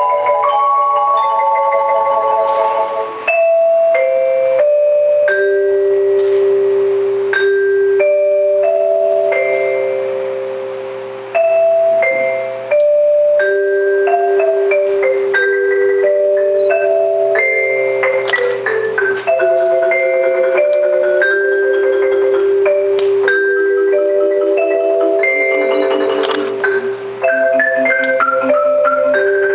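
Mallet percussion music, marimba-type instruments, playing a slow melody of held, rolled notes with higher bell-like notes over it.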